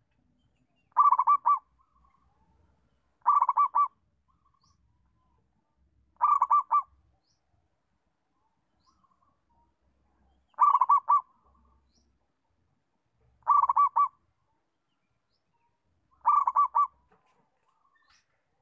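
Local-type zebra dove (perkutut) singing: six short phrases of quick, rolling coo notes, each phrase about half a second long and spaced a few seconds apart.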